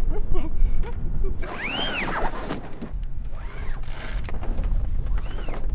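Sailboat line being worked at the mast winch: several rising-and-falling squeaks from the rope running through the winch and blocks, with bursts of ratchet clicking.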